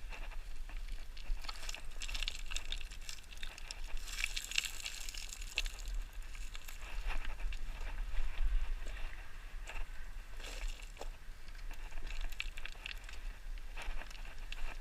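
Footsteps crunching and scuffing on loose gravel and stones while scrambling up a steep slope, in an uneven run with the busiest patches about two and four to six seconds in. A steady low rumble of wind or handling on the microphone runs underneath.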